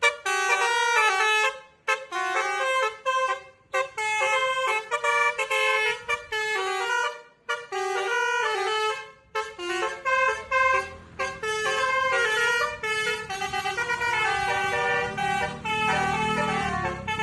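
Multi-tone 'telolet basuri' bus horn playing a rapid melody, note after note in quick steps with short breaks between phrases. A low rumble joins underneath for the last several seconds.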